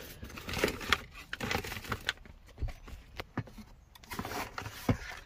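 A hand rummaging in a cardboard parts box, with irregular light clicks and rustles as parts and packaging are handled.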